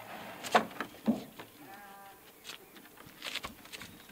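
Wooden knocks and bumps as a wooden cupola is shoved and shifted against the plank roof, the loudest about half a second and a second in, with more a little after three seconds. A brief pitched call sounds near the middle.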